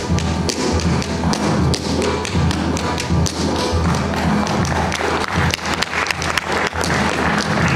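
Tap shoes striking a stage floor in quick runs of sharp clicks, over recorded music with a steady bass line.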